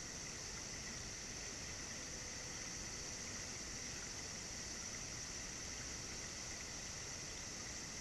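Steady outdoor ambience: a continuous high-pitched insect drone over a low rumble, with no distinct events.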